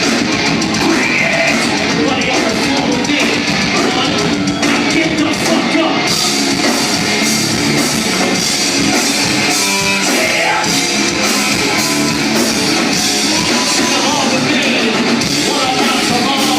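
Metal band playing loud and live in a club: distorted guitars, drums and singing. The sound gets brighter about six seconds in.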